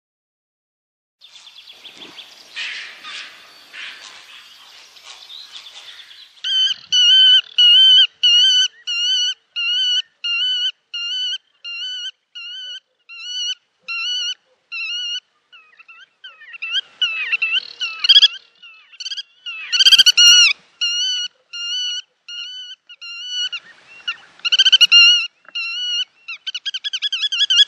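Black-tailed godwits calling: after a few seconds of rough, noisy chatter, a long run of repeated calls at about one and a half a second. The calls grow louder and overlap around the middle, then quicken into a fast wavering trill near the end.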